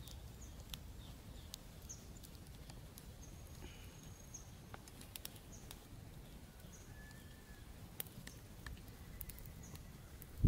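Outdoor rural ambience: birds chirping in short high calls, one held note partway through, over a steady low rumble, with scattered sharp crackles from a wood fire.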